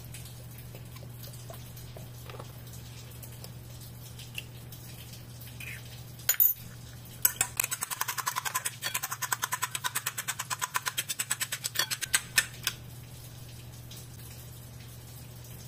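Spoon beating egg into milk in a ceramic bowl, clinking quickly and evenly against the bowl, about seven strokes a second for some five seconds, after two sharp knocks. A steady low hum runs underneath.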